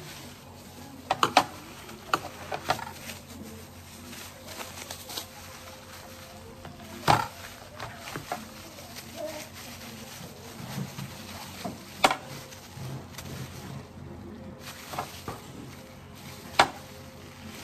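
Ripe jackfruit being pulled apart and cut by hand on a plate: soft handling noise with scattered sharp clicks of a knife blade knocking against the plate, a few of them loud.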